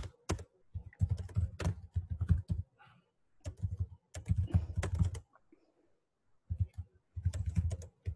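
Computer keyboard typing in three quick bursts of key clicks, separated by pauses of about a second.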